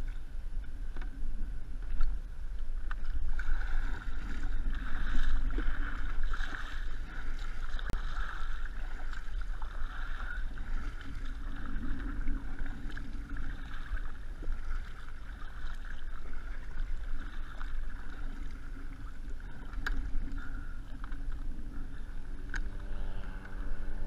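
Water splashing and rushing along a fishing kayak's hull as it moves, with paddle strokes and a constant low wind rumble on the camera microphone. A steady pitched hum comes in near the end.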